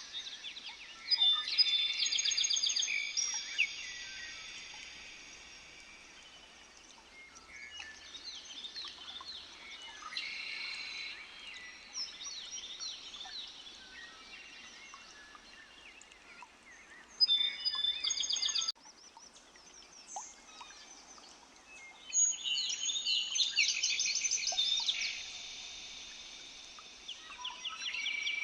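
Several songbirds singing at once, overlapping high, rapid trills and chirps. The songs come in loud bouts about a second in, around 17 s and from about 22 to 25 s, with quieter calling between.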